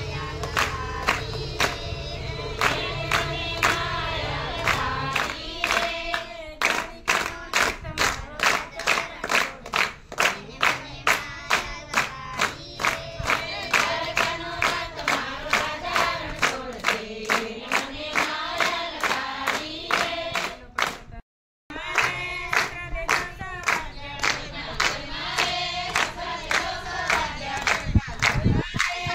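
A group of voices singing a Gujarati Gor Maa devotional song together, kept in time by sharp hand claps at about two or three a second. The sound cuts out for a moment about 21 seconds in.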